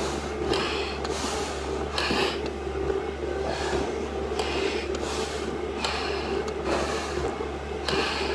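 Heavy, rhythmic breathing through a firefighter's SCBA face mask during an exertive stair climb, each breath a hissy rush coming about once a second, over a steady low hum.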